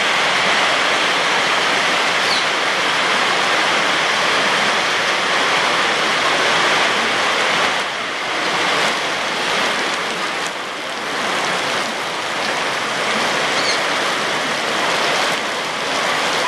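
Heavy rain pouring down in a steady, loud hiss, easing slightly about halfway through.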